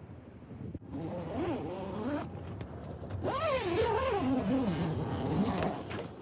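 A person's voice making drawn-out, wavering vocal sounds twice without words, the second longer and falling in pitch, over a steady rush of wind.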